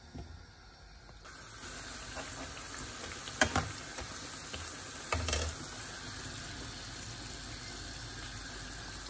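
Pakoras deep-frying in hot oil: a steady sizzle that starts suddenly about a second in. Two sharp knocks come around the middle.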